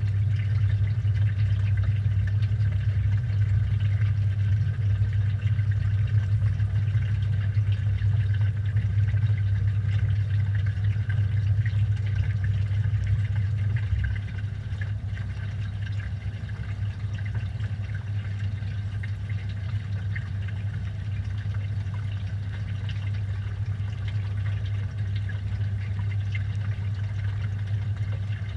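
Washing machine running, heard from inside the drum through a GoPro's waterproof housing: a steady low hum from the motor and turning drum, with water and suds sloshing. The sound drops a little about halfway through.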